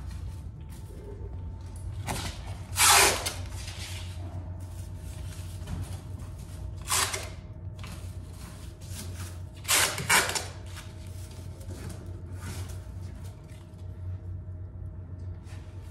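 Masking tape pulled off the roll in short noisy pulls while a car is being masked for paint: the loudest about three seconds in, another about seven seconds in, and two in quick succession around ten seconds. A steady low hum runs underneath.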